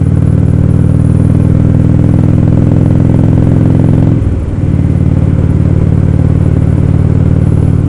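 Indian Roadmaster's V-twin engine running steadily while riding at road speed, its sound briefly dipping about four seconds in before carrying on.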